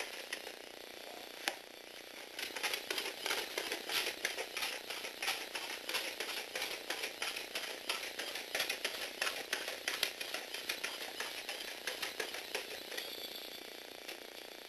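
Lego Technic four-legged walking robot clattering along a wooden floor: plastic feet and geared legs rattle in a rapid, uneven run of clicks. It starts about two seconds in and eases off near the end.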